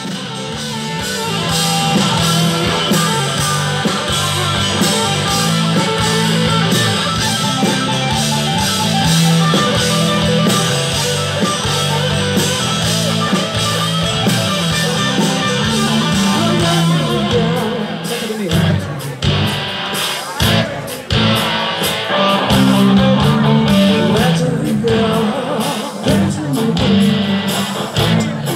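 Live rock band playing loudly through a PA system, with electric guitars, drums and a singer, recorded from within the audience. The music breaks off briefly a couple of times about two-thirds of the way in.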